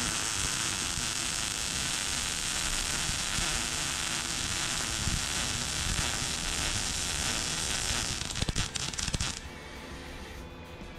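MIG wire-feed welder arc laying a continuous bead on a steel subframe rail: a steady, loud crackling hiss for about eight seconds. It breaks into an uneven sputter of pops before the arc stops about nine seconds in.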